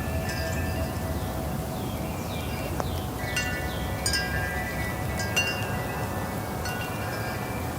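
Wind chimes ringing in the breeze. Several overlapping tones are struck again at irregular moments, most thickly from about three seconds in, over a steady low rush of wind.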